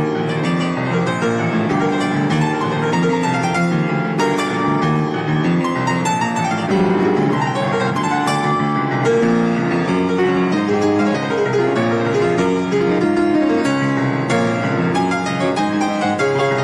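Instrumental break in a song, led by piano playing chords and melody with no singing.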